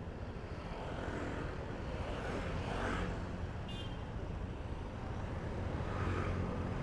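City street traffic in a slow-moving queue: a steady low rumble of idling and creeping motor-scooter and car engines. A short high-pitched beep sounds a little before four seconds in.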